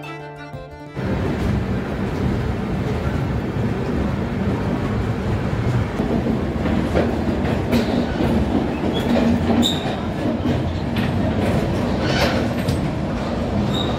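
A short music passage ends about a second in, giving way to a passenger express train running on the rails: a steady rumble of carriage wheels on track with scattered clicks and rattles.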